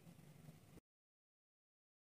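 Near silence: faint room tone that cuts to complete silence under a second in.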